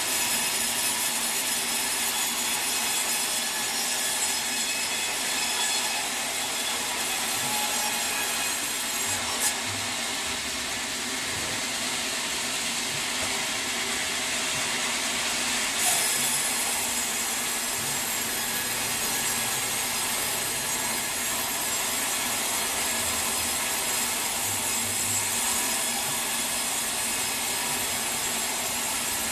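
Sawmill saw running steadily through a teak log, a continuous dense cutting noise, with two brief sharp knocks about a third of the way in and just past halfway.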